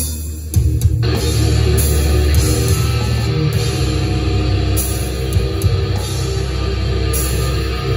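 Live metal band playing loud heavy metal with electric guitars and a drum kit. The mid and upper sound drops out briefly right at the start, then the full band comes back in within the first second.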